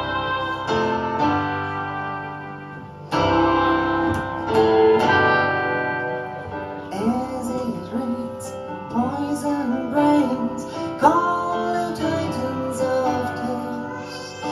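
Live band playing: keyboard and electric guitar under a melody on a clarinet-like reed instrument for the first few seconds, then a woman starts singing about seven seconds in.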